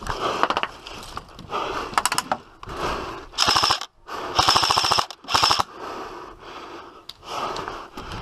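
M4-style airsoft rifle firing several short bursts on full auto, each a rapid, even rattle of shots, the loudest in the middle of the stretch.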